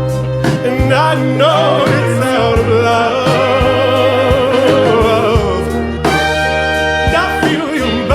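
Music: a song with a beat and bass, a wordless sung voice wavering on held notes through the middle.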